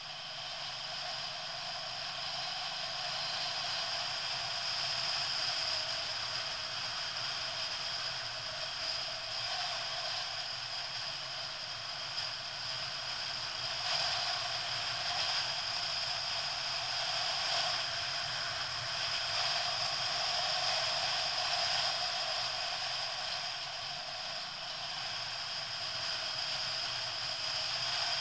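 A motorcycle on the move, heard from a camera mounted on the bike: engine and the rush of wind and road noise merge into a steady hiss that swells slightly now and then.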